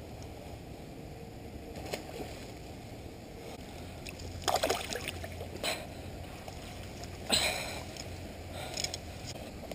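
Several brief water splashes from a hooked carp thrashing at the surface, from about the middle on, over a low steady background noise.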